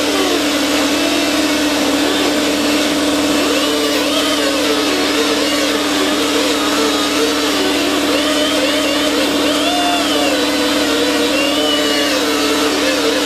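Power grinder spinning a wire brush against a rusty steel mower deck, stripping rust: a loud, steady motor whine over a scratchy hiss, its pitch wavering up and down as the brush is pressed into the metal.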